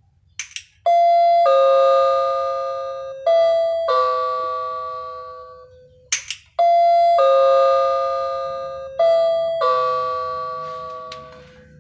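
A newly wired AC electric doorbell with a built-in speaker playing its four-note electronic chime twice, each round started by a short click. The notes ring on and fade, overlapping one another.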